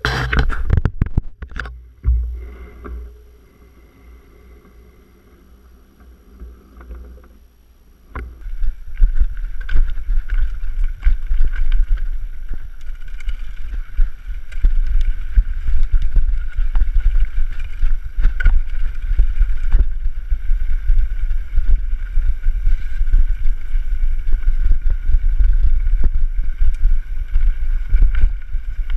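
Mountain bike riding down a dirt trail, heard through a camera worn by the rider: after a few knocks and a quieter stretch, from about eight seconds in there is a loud, steady low rumble of wind on the microphone, with the bike rattling and knocking over bumps.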